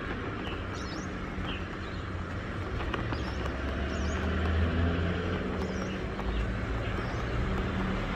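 Street ambience: a steady rumble of car traffic that swells briefly as a vehicle goes by midway, with short bird chirps now and then.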